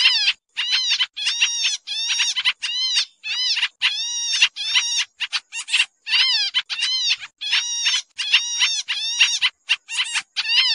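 Pied triller (kapasan kemiri) calling busily: a rapid, near-unbroken series of harsh, buzzy chattering notes, several a second with only brief gaps.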